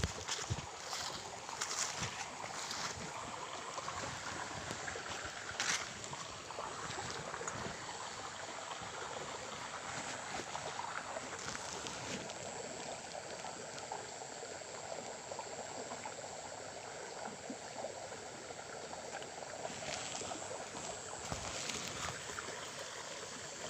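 Small stream flowing steadily, a continuous rush of water, with a few brief knocks and rustles scattered through.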